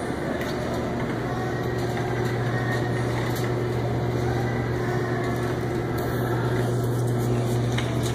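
Wire shopping cart rolling across a hard store floor: a steady low rumble with faint scattered clicks.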